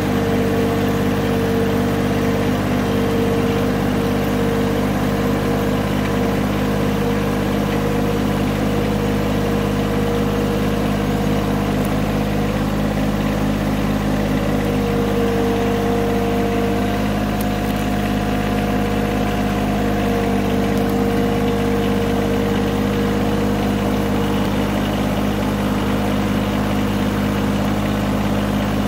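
John Deere tractor engine running steadily while the tractor works snow with its front loader, with a steady whine over it that shifts in pitch a few times.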